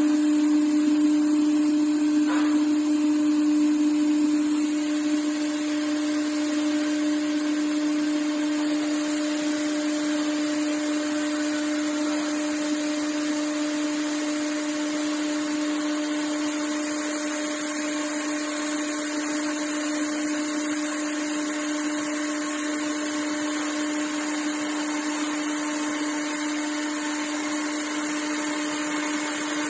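Spindle of a 5-axis CNC router running with a steady, unchanging whine and a hiss above it, as the cutter works a block held in a chuck.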